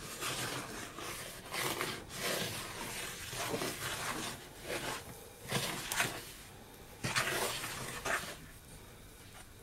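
A spoon stirring and scraping stiff ginger biscuit dough in a mixing bowl, working dry flour into the wet treacle mixture: irregular swishing, scraping strokes that grow quieter near the end.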